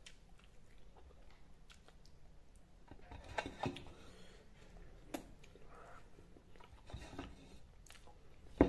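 Eating rice and chicken curry by hand from a metal plate: fingers mixing the food on the plate and chewing and mouth smacks, heard as faint scattered clicks and light scraping. A sharp short smack just before the end is the loudest sound.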